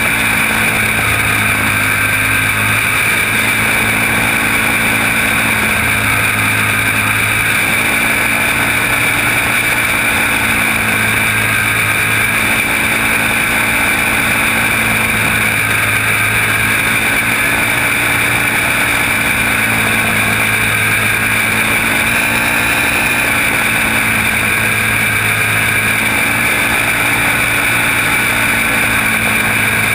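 Racing kart engine running hard at near-steady high revs, its pitch shifting slightly every few seconds through the corners, heard on board under a constant rush of wind noise.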